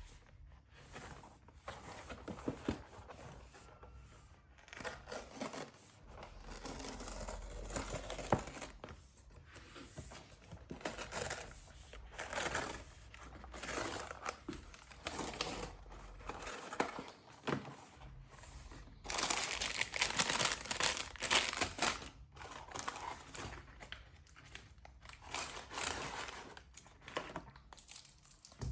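Happy Meal packaging being handled and opened: crinkling, rustling and tearing in irregular bursts, busiest about two-thirds of the way through.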